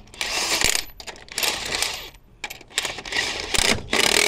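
Small metal parts clinking and rattling in several short spells, like loose hardware being handled.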